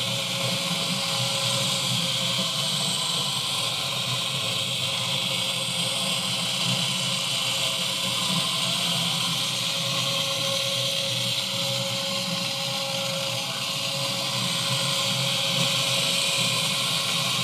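Small electric drive motors of two Open-Car System model trucks, a Unimog and an Econic, whirring steadily as they drive round the layout, with a thin steady tone running through the whir.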